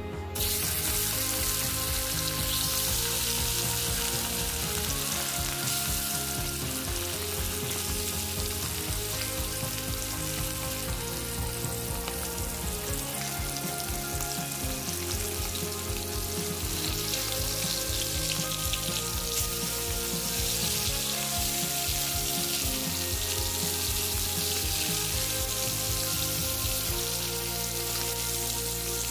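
Rohu fish pieces frying in hot oil in a wok: a loud, steady sizzle that starts suddenly as the fish goes into the oil and keeps going.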